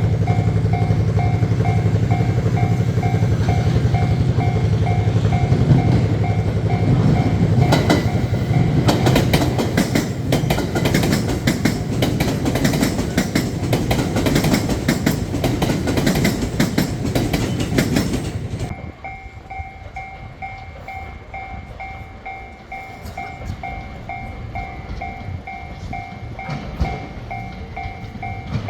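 Japanese level-crossing alarm ringing in a steady, even pulse while a train runs over the crossing with rhythmic wheel clatter on the rail joints. The train noise cuts off suddenly about two-thirds of the way through, and the crossing alarm keeps ringing.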